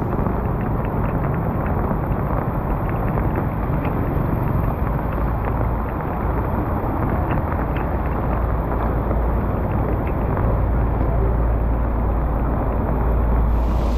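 Steady rushing of floodwater with a deep rumble of wind buffeting the microphone, and faint scattered small ticks or splashes.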